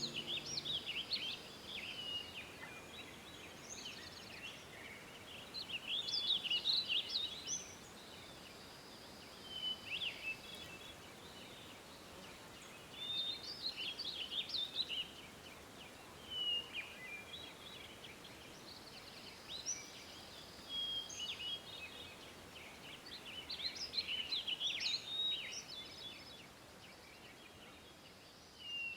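Birdsong: bursts of quick chirps and warbling phrases every couple of seconds over a faint steady background hiss.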